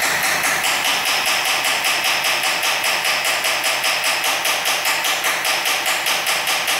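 Hammer tapping rapidly and evenly, about six sharp metallic taps a second, on a bolt at the exhaust manifold of a running 3.5 L V6. The taps create a false knock that the engine's knock sensors pick up.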